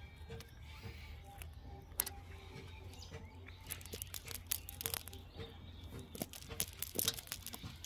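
A nylon fishing net rustling and crackling as hands pick the catch out of it, with scattered short sharp clicks.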